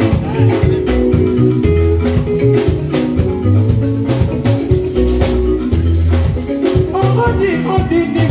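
Band playing Congolese rumba without vocals: plucked guitar lines over a bass line and steady drums with a shaker.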